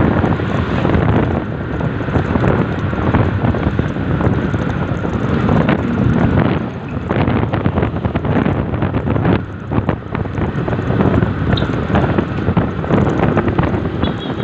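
Wind buffeting hard on the microphone of a vehicle moving fast along a road, over a steady rumble of engine and tyre noise.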